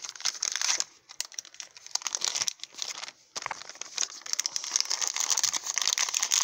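Crinkling and rustling of a shiny printed plastic blind-bag packet being handled and opened, in irregular crackles with a brief pause a little over three seconds in.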